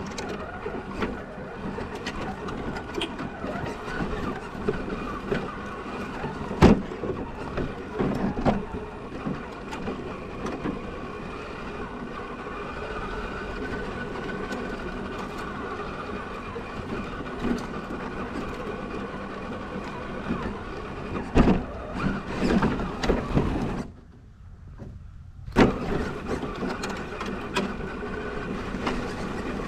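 Element Enduro Trail Runner scale RC crawler driving, heard from a camera mounted on the truck: a steady whine from its electric motor and gearbox, broken by sharp knocks as it climbs over the trail. The motor cuts out for about a second and a half near the end, then starts again.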